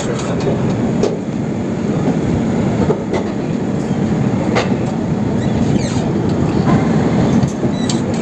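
Mau–Anand Vihar Superfast Express (22539) running through a station yard, heard from an open coach doorway: a steady rumble of wheels on the rails with a few irregular clacks as the wheels cross rail joints and points.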